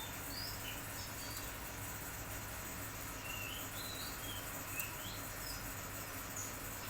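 A small bird giving short, high chirps at irregular intervals, faint over a steady background hiss.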